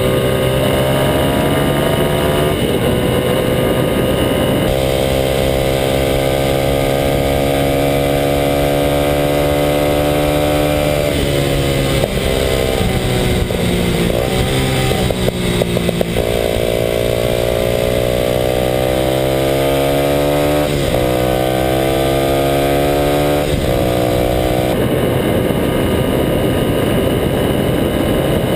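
Kawasaki KLX250SF's single-cylinder four-stroke engine through a Muzzy aftermarket exhaust, pulling the bike along at road speed. The pitch climbs slowly in each gear and drops at several gear changes, with a stretch of uneven revving about halfway through.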